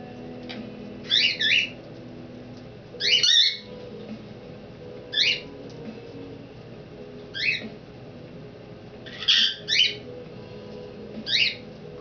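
Quaker parrot (monk parakeet) giving short chirping calls, about one every two seconds, some in quick pairs.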